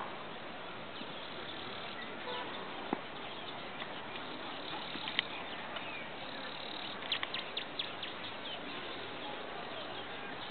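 Steady background hiss with a few faint clicks, one about five seconds in and a short cluster around seven to eight seconds.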